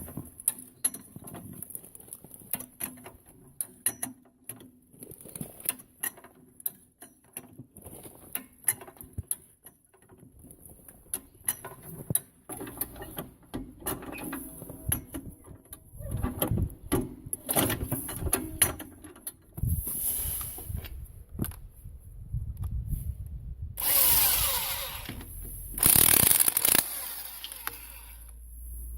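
Hand tools clinking and knocking against metal brake parts, in an irregular run of sharp clicks that grows rougher and louder partway through. Near the end come two short bursts of a power tool, each about a second long.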